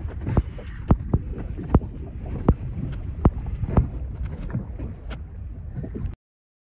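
Wind buffeting the microphone aboard a small fishing boat, with a steady low rumble and sharp knocks every half second to a second. The sound cuts off abruptly about six seconds in.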